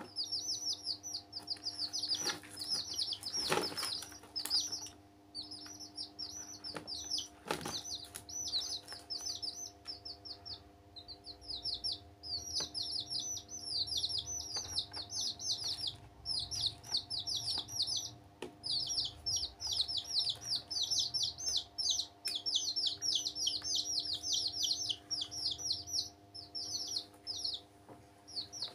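Baby chicks peeping: rapid, repeated high chirps that fall in pitch, running almost without break with short pauses. A few knocks come in the first eight seconds, over a faint steady hum.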